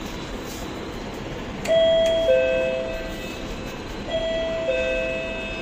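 Electronic two-tone doorbell chime sounding ding-dong twice, about two and a half seconds apart: each time a higher note followed half a second later by a lower one that rings on and fades.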